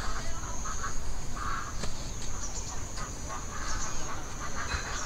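Bird calls repeated in short bursts, over a thin steady high tone.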